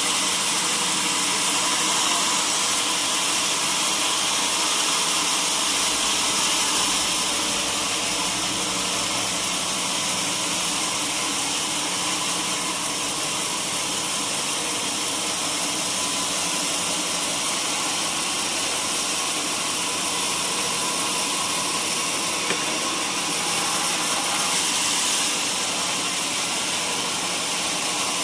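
Sawmill saw running steadily through durian wood, a continuous loud hissing machine noise with a brief dip and swell about three-quarters of the way in.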